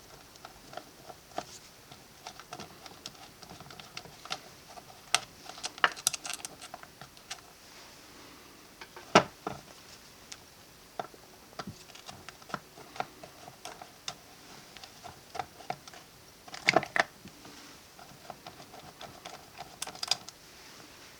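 Irregular light clicks and taps of small tools and metal parts as an ABU Ambassadeur 7 baitcasting reel is taken apart. There is a sharper click about nine seconds in and a quick run of clicks around seventeen seconds.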